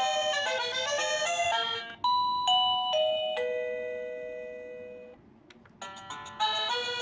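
Wireless doorbell receiver playing its electronic melodies as they are stepped through: the end of one quick tune, then a descending chime of four notes that rings out and fades, a brief pause, and the next tune starting near the end.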